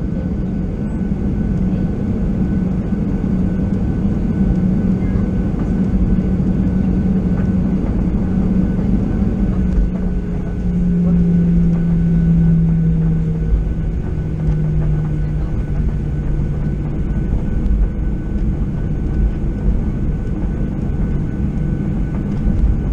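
Cabin noise of a Boeing 737-800 taxiing, heard from a window seat over the wing: its CFM56-7B engines at taxi power give a steady drone with a low hum and a faint high whine. The hum drops a little in pitch about halfway through and again a few seconds later.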